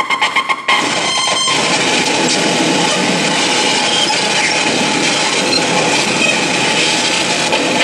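Harsh noise music played live on electronics: a fast pulsing stutter cuts over, under a second in, to a dense, steady wall of noise.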